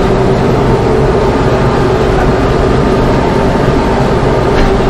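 Mahindra tractor's diesel engine running steadily under load as it pulls a chisel plow through rough, compacted ground, heard from inside the cab.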